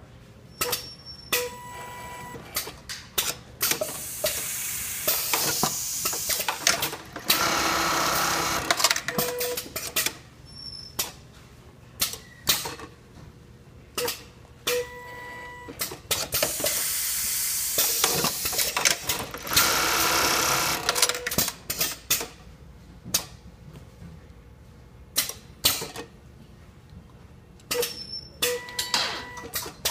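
Automatic strap-sewing unit with an industrial sewing machine, working through its cycle: sharp clicks from the clamps and feed, with two longer stretches of the machine stitching. The pattern repeats about every 13 seconds.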